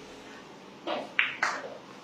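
Pool balls clacking on a billiard table: two sharp knocks about a fifth of a second apart, after a short softer sound.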